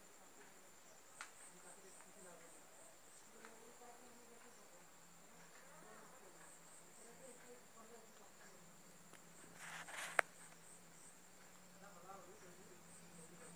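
Crickets chirping in a faint, steady high-pitched trill, with evenly repeated pulses running through it. About ten seconds in comes a brief crackle ending in a sharp click.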